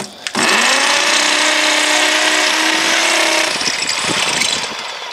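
Electric drill with a 10 mm masonry bit boring into a brick wall, running steadily for about four seconds, then easing off near the end.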